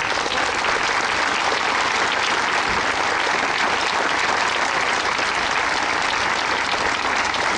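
Crowd applauding: many people clapping at once, dense and steady.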